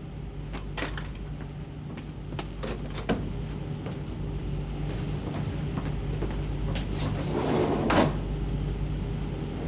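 Steady low hum of a ship's machinery, with several short sharp clicks and knocks in the first few seconds. A rustling swell builds and ends in a louder knock about eight seconds in.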